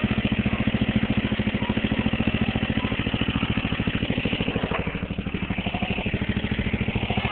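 Riding lawn mower engine running under load with a steady pulsing beat as the mower crawls over creek rocks, easing slightly about five seconds in.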